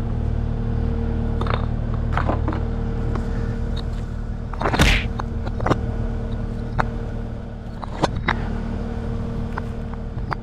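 A skid steer's engine idling steadily, with scattered sharp knocks and clacks of concrete paver bricks being pulled up from the turf and handled, the loudest about five seconds in.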